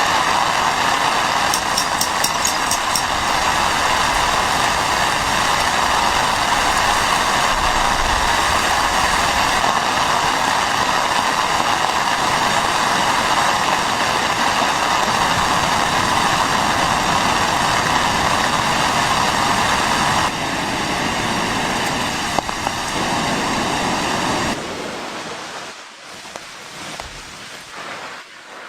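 Steady rush of heavy rain and wind. It steps down slightly about twenty seconds in, then drops much quieter about twenty-five seconds in, leaving a softer patter with a few faint knocks.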